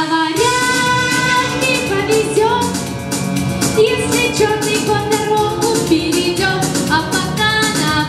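A girl singing a Russian pop song into a handheld microphone over a recorded backing track with a steady beat.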